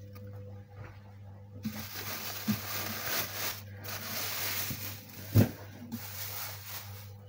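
A towel and a plastic bag being pulled off a pot of yeast starter, rustling in two stretches, with one thump about five seconds in. A low steady hum runs underneath.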